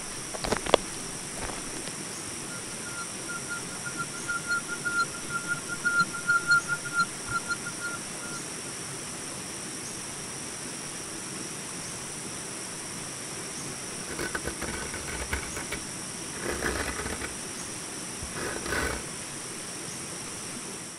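Nature sound-effects ambience: a steady, high-pitched drone of insects, with a rapid pulsing trill from about three to eight seconds in and three short, rough noises later on.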